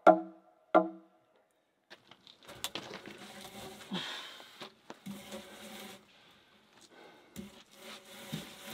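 Two heavy hammer blows on a log post in the first second, each a sharp knock with a short ring. Then quieter shuffling and soft footfalls.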